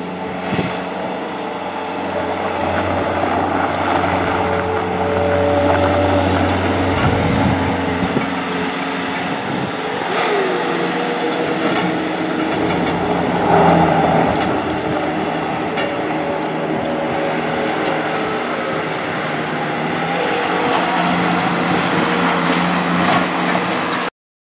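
2006 Bobcat S205 skid steer's diesel engine running, its pitch and loudness shifting up and down as the machine works. The sound cuts off suddenly near the end.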